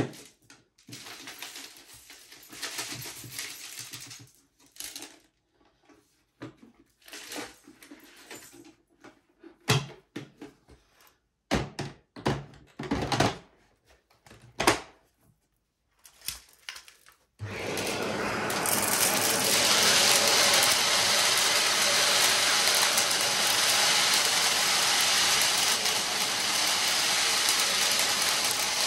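Scattered knocks, clicks and handling noises, then a vacuum cleaner switched on about two-thirds of the way in. Its motor spins up over about a second and then runs steadily and loudly.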